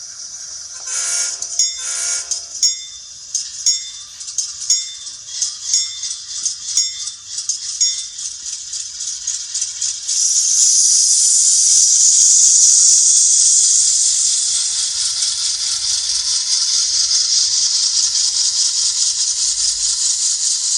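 Sound decoder of an N scale GE AC44C6M diesel locomotive model playing through its tiny speaker. Two short horn blasts come first, then the bell rings about twice a second until about 8 s in. From about 10 s a loud, steady air hiss takes over.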